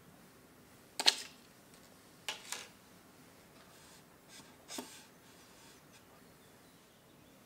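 Small plastic Funko Pop Mini Moments figure and diorama pieces clicking and tapping as they are handled and set in place: a sharp click about a second in, a quick pair of taps a little later, and a softer pair near the middle.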